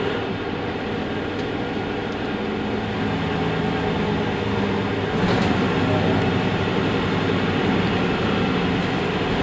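Mercedes-Benz Citaro G C2 articulated city bus idling at a stop, a steady engine hum that grows a little louder about five seconds in.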